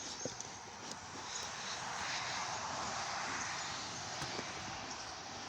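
Honeybees buzzing in an opened hive: a steady, dense drone that swells a little in the middle.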